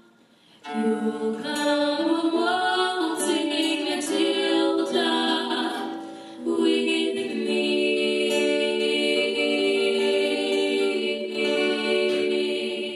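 Several voices singing long, sustained notes in harmony, a choral sound. The singing starts just after the opening moment and breaks off briefly about six seconds in before carrying on.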